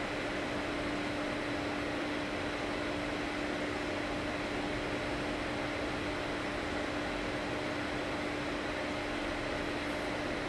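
A steady hum over an even hiss from running equipment, unchanging throughout.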